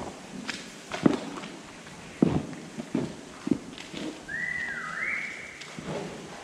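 Footsteps on a wet barn floor, a handful of separate thuds, and about four seconds in a short two-note whistle that rises to a high pitch, a person whistling at cows to move them along.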